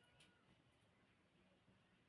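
Near silence, with one faint click about a quarter of a second in.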